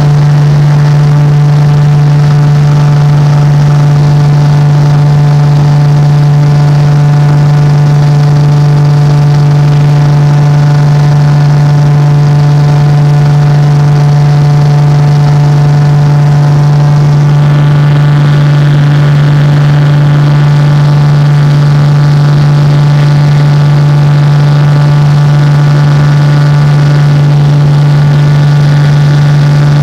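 Cessna 185 amphibian's six-cylinder engine and propeller at takeoff power through lift-off and climb-out, heard from inside the cabin as a loud, steady drone with a constant low pitch. About halfway through, its higher tones shift and grow brighter.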